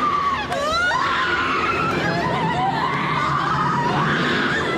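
People screaming in high, wavering shrieks, with some laughter mixed in.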